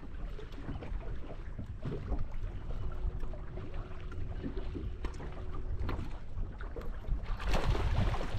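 Wind buffeting the microphone and water lapping against a bass boat's hull as a low, steady rumble with small ticks; the noise swells near the end.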